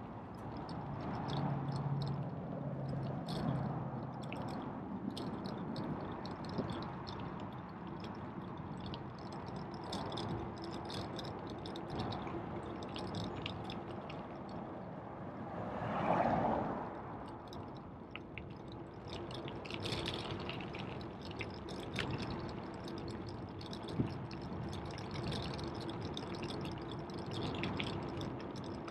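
Bicycle ride on a paved path: a steady rush of rolling and wind noise with many small clicks and rattles, and a louder swell of rushing noise about sixteen seconds in.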